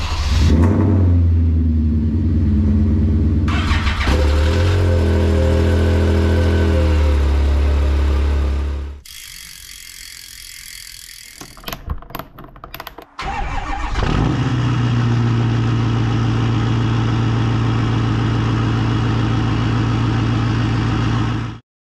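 Motor vehicle engines running and revving, in separate cuts: one engine runs loud and steady, cuts off abruptly about nine seconds in to a quieter stretch with a few sharp clicks, then another engine runs steadily from about fourteen seconds.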